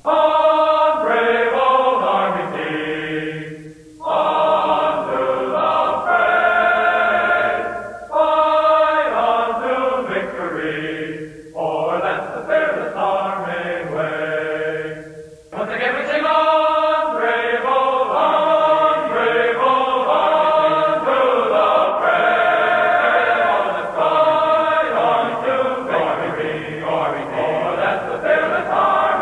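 Soundtrack music of a choir singing in long held phrases, with short breaks between phrases in the first half and unbroken singing after that.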